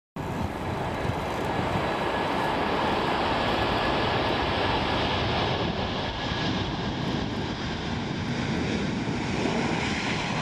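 Airbus A330-300's Rolls-Royce Trent 700 turbofans running at taxi power: a steady jet rush with a high fan whine over it, cutting in abruptly at the start.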